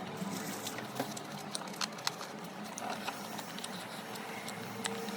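Chewing and mouth sounds of someone eating chicken biryani: irregular soft clicks and smacks over a faint steady low hum.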